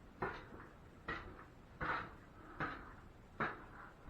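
Drywall knife scraping joint compound across the wall in short repeated strokes, about five in four seconds, feathering out the edge of a skip-trowel patch.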